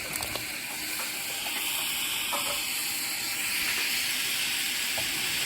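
Food cooking in a pot on the stove, a steady sizzling hiss that grows a little louder after the first second or so, with a few faint clicks.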